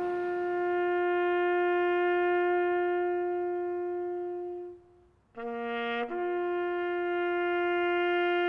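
Solo bugle sounding a slow call: a long held note, a brief break about five seconds in, two quick notes (one lower, one higher), then another long held note.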